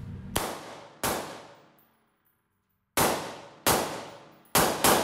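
Six suppressed 5.56mm rifle shots from a Sig MCX Virtus short-barrelled rifle fitted with a SureFire SOCOM II Mini suppressor, fired in three quick pairs. Each shot is a sharp crack with a metallic ring that decays in the steel-walled range.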